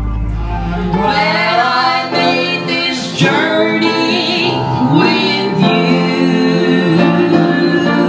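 A woman singing a slow gospel-style song with instrumental accompaniment. A low rumble under it stops about a second in.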